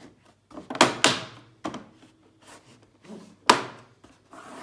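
Cover on the back of a Samsung QLED TV being hooked into place and pressed shut: a few knocks and clicks of the cover against the back panel, the sharpest about three and a half seconds in.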